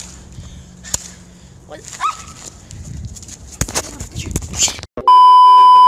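Claw hammer striking smartphones on concrete, sharp blows about once a second, with a person's voice between them. About five seconds in, a loud steady censor beep cuts in.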